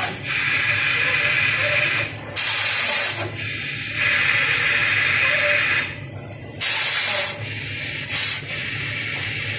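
Compressed air hissing from a boiler auxiliary damper's pneumatic actuator and positioner as the damper is stroked in a test. Long hisses alternate with shorter, sharper blasts: one about two and a half seconds in and two near the end. A steady low hum runs underneath.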